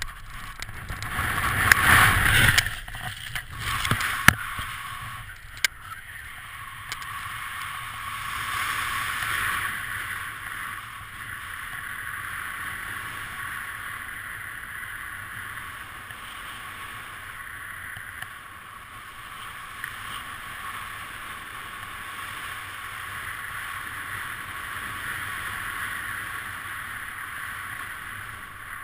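Wind rushing over a helmet camera's microphone during a BASE jump. It is loudest in the first few seconds of freefall, with a few sharp snaps about four to six seconds in as the parachute opens, then a steadier, quieter rush of air while descending under the canopy.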